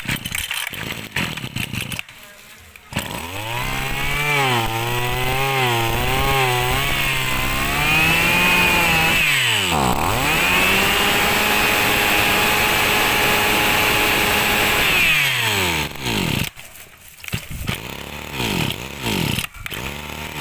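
A Mitsubishi 23cc two-stroke brushcutter engine is pull-started with a few knocks from the recoil starter and catches about three seconds in. It is revved up and down a few times, held at high revs for several seconds, then dropped back to a lower speed with short blips of the throttle near the end.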